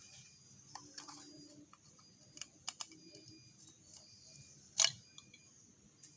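Scattered light clicks and taps, with one sharper click a little under five seconds in. This is the BMW M54 oil filter cap and its seal rings being handled while the old seals are swapped for new ones.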